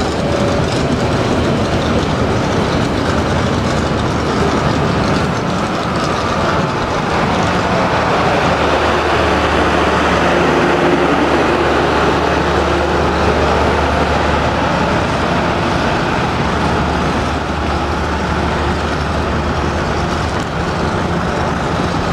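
Passenger train coaches rolling past close by: a steady loud rumble of steel wheels on the rails with some clickety-clack. Around the middle a steady low hum joins in as the coaches' diesel generator car goes by.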